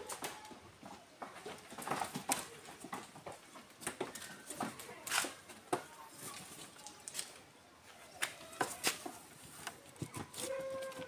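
Goats in a wooden pen: scattered knocks and clatter of hooves and heads against the wooden rails, with one short steady-pitched bleat near the end.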